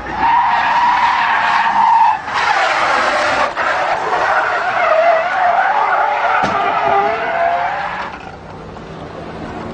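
Car tyres squealing in long, wavering skids as cars drift. The squeal breaks off about two seconds in, starts again at once, and fades about eight seconds in.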